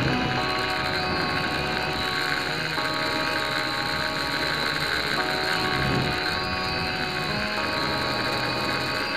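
Tarantula 1505 quadcopter's motors and propellers whining in flight, picked up by the camera riding on it. The whine holds several steady tones that step up and down every second or two as the throttle changes.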